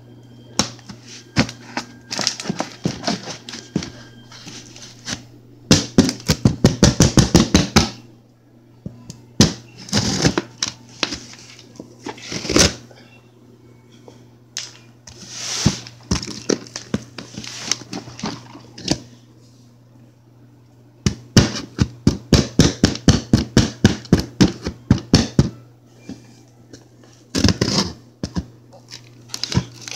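A cardboard shipping box being opened by hand: long runs of rapid crackling clicks, as of packing tape being torn off, with scattered knocks and scrapes of cardboard, over a steady low hum.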